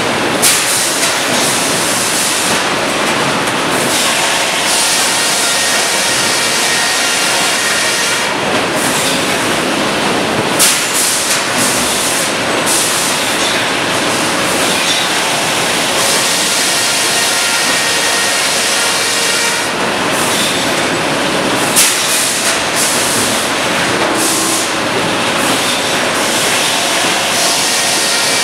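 Sawmill machinery running: a Cleereman log carriage travelling on its rails amid the mill's steady dense noise, with a few sharp knocks.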